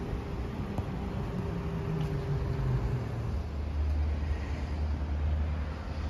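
Car and road traffic noise: a low rumble with an engine note that falls in pitch about two seconds in, then a steady low drone.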